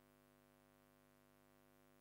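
Near silence: a faint, steady, unchanging hum.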